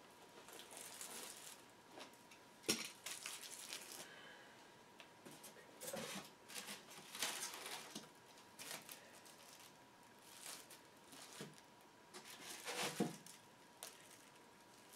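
Faint rustling and crinkling of packaging as small parts are unpacked and laid out by hand, with intermittent light handling noises and two sharper knocks, one a few seconds in and one near the end.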